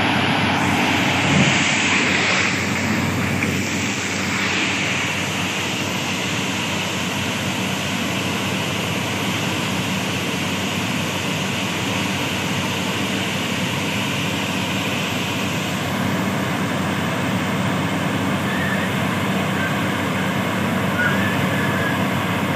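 FY-300 pneumatic down-the-hole water-well drilling rig running as it drills: a steady, loud rush of air over a low engine hum as compressed air blows cuttings and dust out of the borehole.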